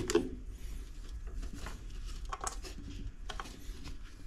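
Clicks and knocks of hands working on an opened refrigerator, the sharpest right at the start and a few lighter taps later, over a faint steady low hum.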